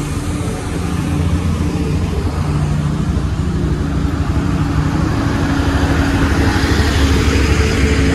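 Motorcycle riding in heavy truck traffic: a steady low engine drone with road and wind noise. The noise grows louder in the second half as a container truck passes close alongside.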